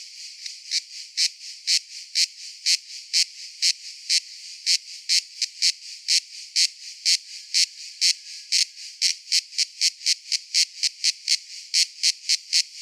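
Cicada calling in a train of short, sharp buzzing pulses, about two a second at first and speeding up to about four a second over the last few seconds.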